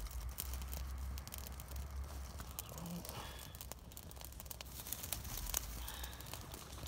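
Campfire burning up through a heap of dry twigs and grass, crackling with many small sharp pops over a steady low rumble.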